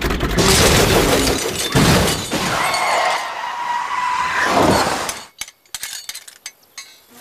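Cartoon sound effects for a racing fly crashing on the road: a loud rushing noise, then a squeal of about two seconds that slides down. The sound cuts off suddenly, leaving a few sparse light clicks and rattles.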